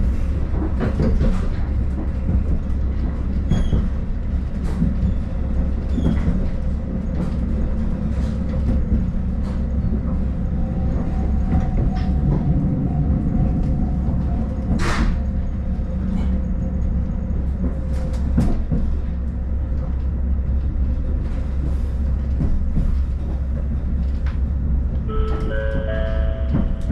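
Cabin of a KiHa 40 diesel railcar under way: a steady low engine and running rumble, with clicks of the wheels over rail joints. Near the end comes a short chime of stepped tones, the kind that leads into an on-board announcement.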